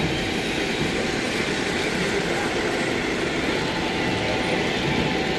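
Model trains running on an O-gauge toy train layout: a steady rolling rumble of wheels on the track.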